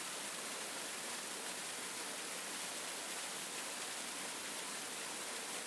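A waterfall's steady rushing hiss of falling water, even and unchanging.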